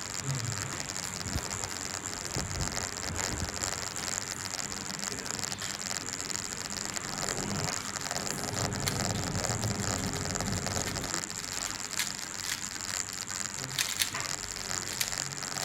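Tornado V3 Flagship speed cube being turned fast during a timed solve: a dense, continuous patter of plastic clicks from the layers snapping past each other, over a steady hiss.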